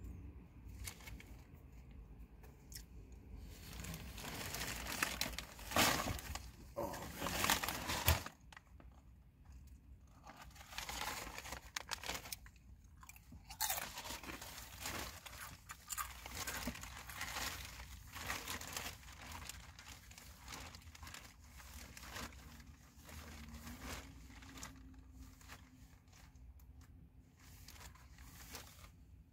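Rustling and crinkling of a plastic bag being rummaged through, mixed with crunching and chewing. It comes as irregular crackles, loudest in a flurry a few seconds in.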